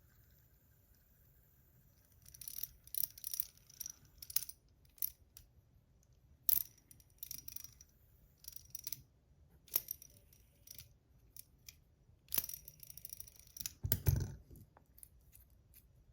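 Small copper fidget parts clicking and clinking as they are handled and spun in the fingers: irregular light metallic taps with a faint ring. A dull thump near the end.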